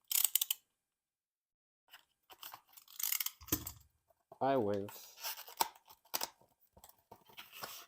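Retail RAM packaging being opened and handled: plastic and cardboard crinkling, tearing and clicking in irregular bursts, with a short vocal sound about halfway through.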